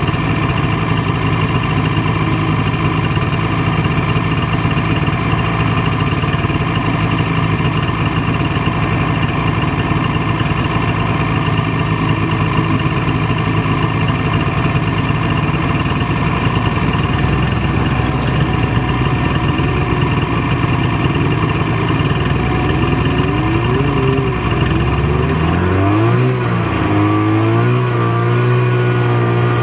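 Snowmobile engine idling steadily. Near the end the throttle is worked, and the engine note rises and falls unevenly as the sled starts to move off.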